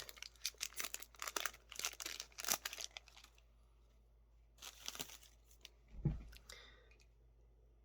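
Foil Yu-Gi-Oh booster pack being torn open and crinkled: a quick run of crackling tears for about three seconds, then a few quieter handling rustles and a soft thump later on.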